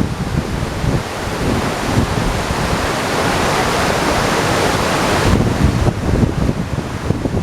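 Waterfall rushing, with wind buffeting the microphone in gusts. The higher hiss of the water drops away sharply about five seconds in, leaving mostly the low wind rumble.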